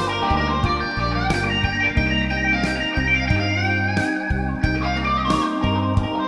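Electric guitar playing a blues-rock melody over fuller music, with low held notes underneath and sharp hits every second or so.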